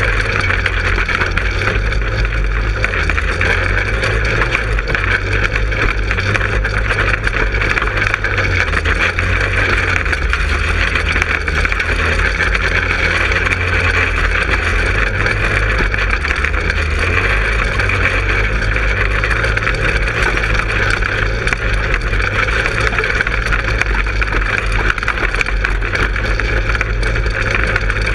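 Manco Helix 150 go-kart's 150 cc four-stroke engine running steadily while the kart is driven along, heard close up from on board.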